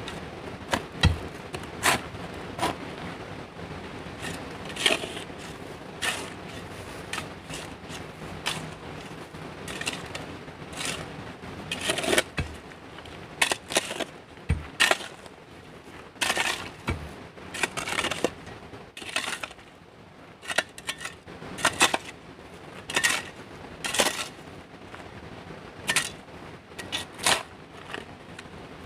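Irregular sharp knocks and short scrapes of a hand tool working stone, roughly one or two strikes a second.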